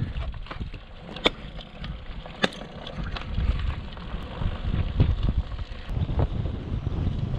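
Wind buffeting the microphone of a road cyclist's helmet camera as the bike rolls downhill, a low gusty rush that rises and falls. Two sharp clicks stand out, a little over a second apart.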